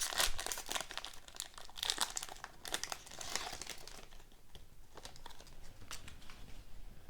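A hockey card pack's wrapper being torn open and crinkled by hand. The crackling is dense for the first few seconds, then gives way to sparser, softer rustles and clicks.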